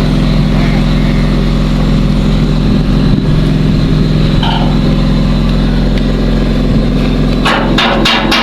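A steady engine drone runs throughout. About seven and a half seconds in, rapid, evenly spaced hammer blows begin, about four or five a second.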